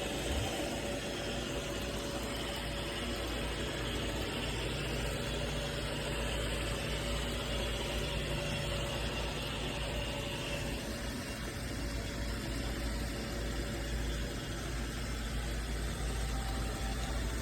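Roomba robot vacuum running: a steady motor whir with a thin high whine that fades out about ten seconds in.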